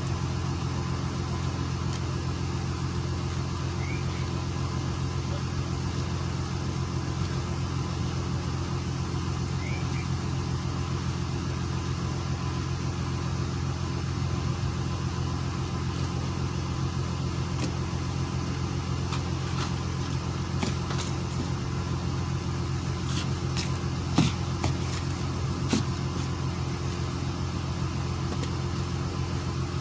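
A fishing boat's engine running with a steady low drone, and a few short knocks in the second half.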